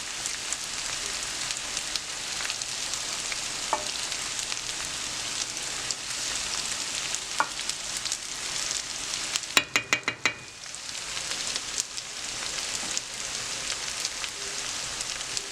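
Potatoes with turmeric sizzling as they fry in a pan of oil, a steady hiss, with a rapid run of about six clicks about two-thirds of the way through, as the food is stirred.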